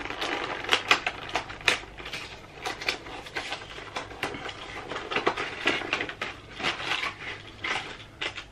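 Hands opening a fishing lure's plastic packaging: irregular crinkling, cracking and clicking of the plastic.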